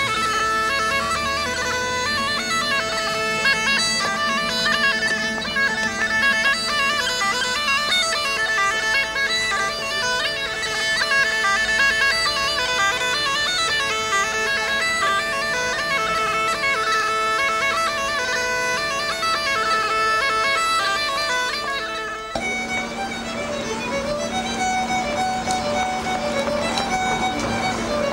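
Bagpipes playing a tune over their steady drones. About 22 seconds in, the music cuts abruptly to a fiddle tune over a steady low drone.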